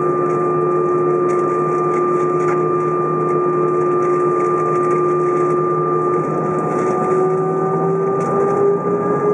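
Airbus A320 jet engines heard from inside the cabin: a steady whine with a low hum under it. About six seconds in, the engine pitch starts rising steadily as the engines spool up.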